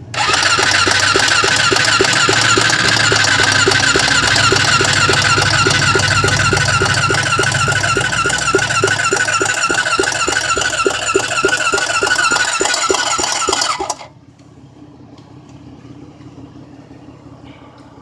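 A Honda 400EX's electric starter cranks its single-cylinder four-stroke engine for about fourteen seconds: a steady, wavering whine with about four compression beats a second. The engine never catches, and the cranking stops suddenly. The quad won't start.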